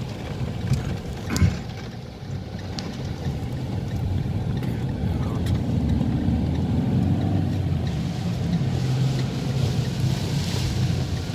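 Steady low rumble inside a car driving through heavy rain on a flooded road: engine and tyre-on-water noise with rain on the windscreen. A couple of sharp knocks come about a second and a half and three seconds in.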